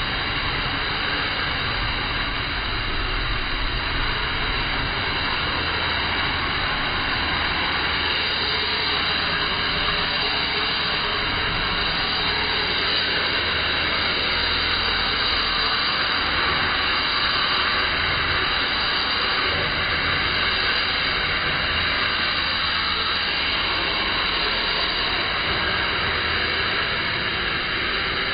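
Pressure washer running, its nozzle blasting a jet of water onto a concrete floor: a steady, loud hiss with a low hum underneath.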